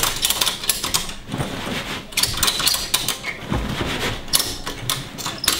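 Ratchet strap being cranked tight, its pawl clicking rapidly in bursts with short pauses as the webbing is reefed down over a loaded bag.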